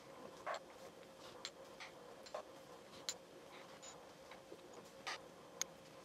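Faint, irregular clicks and ticks from a jeweller's rolling mill as a silver coin is squeezed through its steel rollers, over a faint steady hum.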